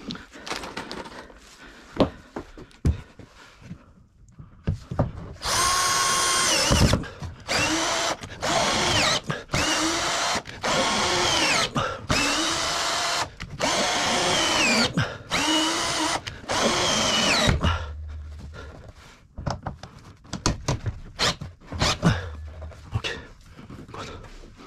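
Electric drill run in a string of short trigger bursts for about twelve seconds, its motor pitch dipping and recovering within the bursts. Scattered knocks and clicks of handling come before and after the drilling.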